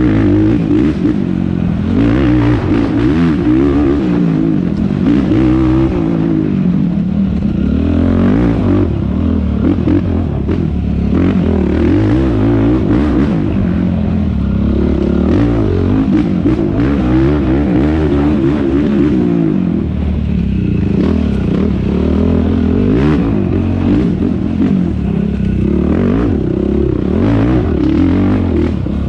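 Yamaha YFZ450R quad's single-cylinder four-stroke engine revving hard, rising and falling in pitch over and over as the throttle is opened and backed off, with knocks and rattles from the machine over rough ground.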